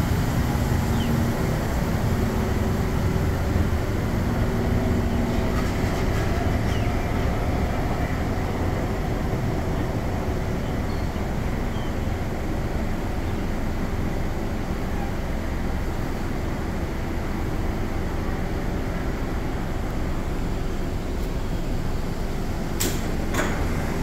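SMRT C151 train rolling in along the platform: a steady rumble of wheels on rail with a faint motor hum that fades in the first few seconds. Near the end come two sharp clicks as the doors open.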